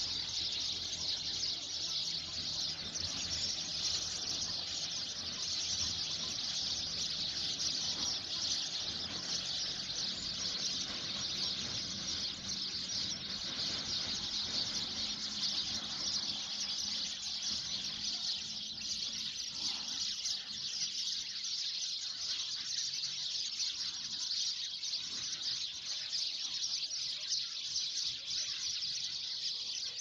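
Flock of sparrows chirping in a dense, unbroken chorus while they settle into a tree to roost at dusk.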